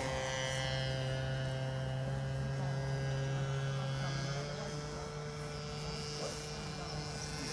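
Motor and propeller of a radio-controlled model motor glider running as a steady hum at high power, its pitch stepping up slightly a little past halfway.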